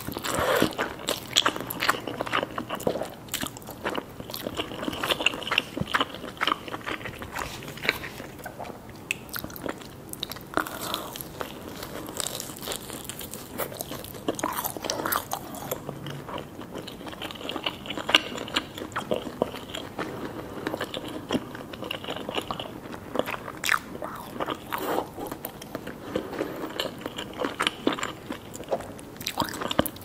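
Person eating with mouth sounds: chewing instant noodles near the start, then biting into and chewing crisp fried fish sticks, with repeated crunches and wet clicks.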